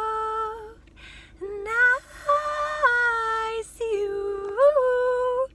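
A woman singing long held notes in three phrases, the last rising near the end and then cutting off suddenly.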